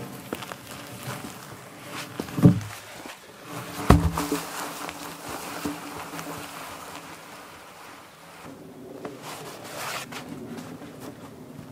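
A heavy peeled log dragged by a strap over the ground and wood chips, scraping, with two loud thumps about two and a half and four seconds in as it knocks against the ground or other logs.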